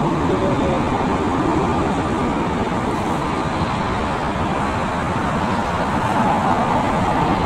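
Southwest Boeing 737's jet engines running as it rolls down the runway: a steady, even rumble that swells slightly near the end.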